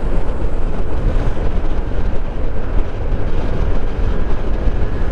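Yamaha NMAX 155 scooter under way: a steady rush of wind and road noise with the engine underneath, heaviest in the low rumble and unbroken throughout.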